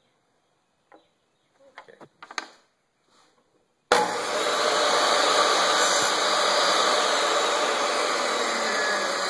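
A few faint handling clicks, then a table saw switched on about four seconds in, running steadily and loudly while it crosscuts a short length of wooden dowel.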